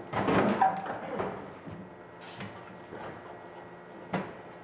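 Handling noise from a tool chest and its packaging being moved: a scraping rustle in the first second, then a couple of sharp knocks later on.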